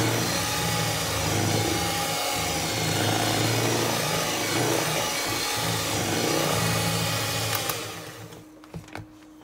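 Electric mixer running steadily while beating cake batter, switched off near the end, followed by a couple of light knocks.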